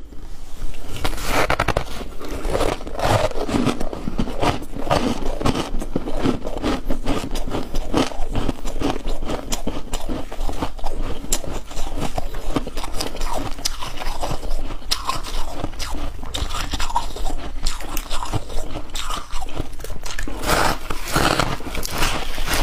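A person biting and chewing chunks of ice, with many irregular crunches and scrapes in quick succession.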